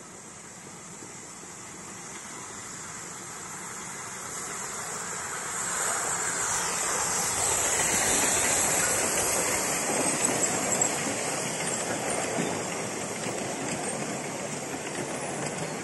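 Miniature steam locomotive and its passenger carriages passing on the rails. The sound grows louder as the train approaches, is loudest about eight seconds in as the engine goes by, then settles into the steady rolling of the carriages.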